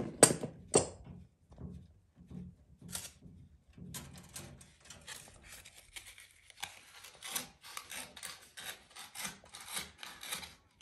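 A few sharp clicks, then sandpaper rubbing back and forth on the metal contact end of a gas boiler's thermocouple, about two or three strokes a second. The contact is being cleaned because the boiler's gas valve keeps dropping out and the boiler goes out.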